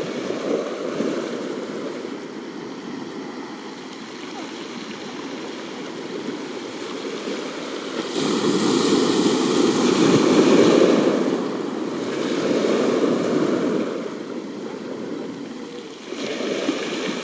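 Sea waves surging in and washing back: a steady rush of surf that swells and fades, with the loudest wave about halfway through, another just after it and a smaller one near the end.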